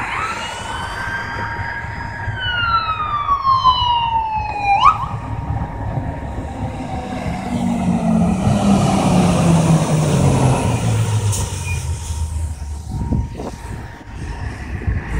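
Fire engine siren wailing, rising for about two seconds and then falling, before it breaks off about five seconds in. The truck's diesel engine then runs loud as it passes, its pitch dropping as it goes by.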